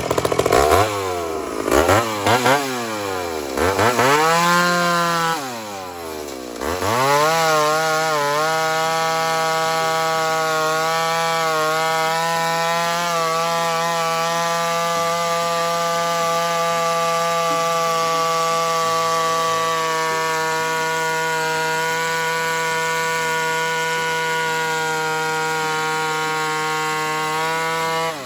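Ported Homelite two-stroke chainsaw revved up and down several times, then held at a steady high speed for about twenty seconds before dropping off at the end.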